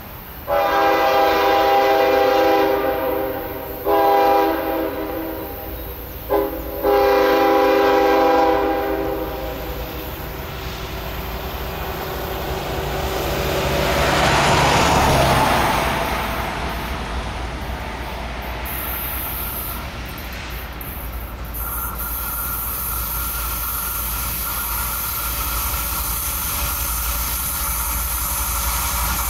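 Diesel locomotive air horn sounding the grade-crossing signal, long, long, short, long, in the first eight seconds. The locomotives' low rumble then builds as the train approaches, with a broad whoosh that swells and fades about halfway through and a thin steady squeal joining in later.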